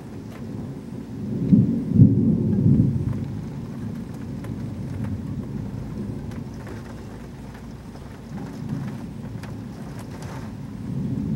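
Thunder in heavy rain: a loud peal about a second and a half in that rumbles on for a couple of seconds and slowly dies away, then a second, softer rumble building near the end, over the steady noise of falling rain.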